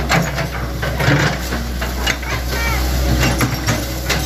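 Hitachi Zaxis ZX100 excavator's diesel engine running steadily, with several short knocks.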